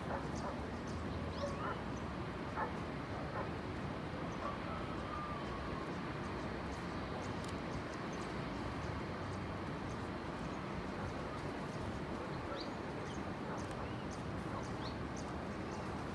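Steady outdoor background hiss with a few faint, short animal calls scattered through it, and small soft clicks.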